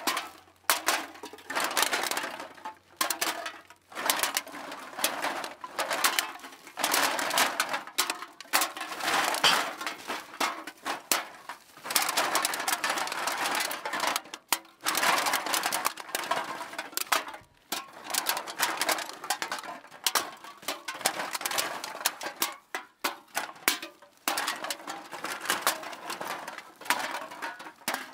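Continuous rattling and clattering of many small hard objects knocking together. The clatter runs densely, with a few brief pauses.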